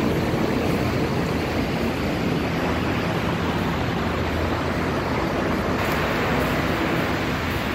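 Steady rushing noise with a low hum underneath: the ambience of an LRT station concourse. It gets a little brighter about six seconds in.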